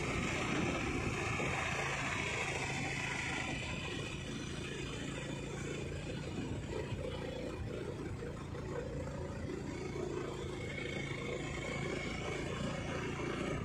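A vehicle's engine running steadily with tyre and wind noise, heard from on board while it drives along the road.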